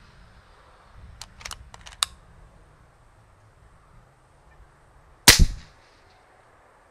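Kral Puncher Breaker .22 PCP air rifle firing one shot on high power with an 18-grain pellet: a single short, sharp report with a second crack right behind it. A few light clicks come about one to two seconds in.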